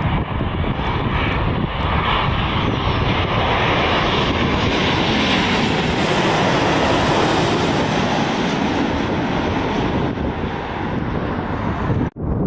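Boeing 787 Dreamliner on final approach with gear down, its twin turbofan engines passing low overhead: a steady jet rush that swells to its loudest and brightest midway as the plane goes over, then eases off. The sound cuts out abruptly near the end.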